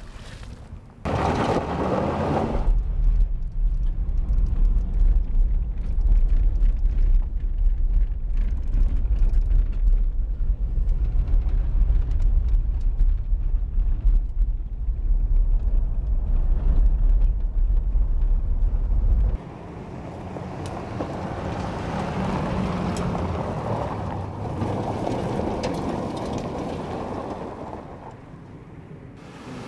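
Vehicle engine and road rumble heard from inside the cab while driving, steady and deep, cutting off abruptly about 19 seconds in. After that comes a softer rushing noise that swells and fades, as a vehicle drives across gravel.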